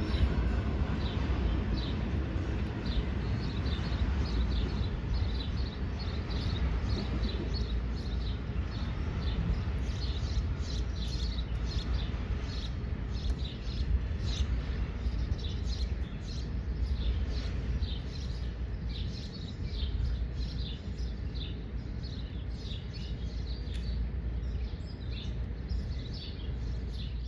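Small birds chirping, many short high calls in quick succession, over a steady low rumble from a freight train moving off into the distance.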